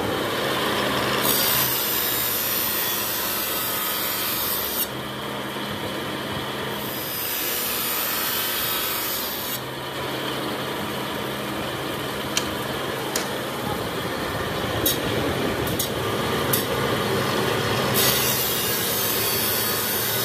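A bench machine's rotary disc runs with a steady motor hum while curved truck brake-lining blocks are fed against it, giving loud rasping grinding in three stretches: about a second in, near the middle, and near the end. In between come a few sharp clicks as the pieces are handled.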